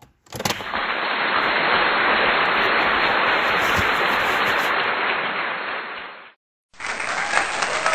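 A steady, even hiss with no clear source, fading out about six seconds in. After a brief silence, applause-like clapping begins near the end.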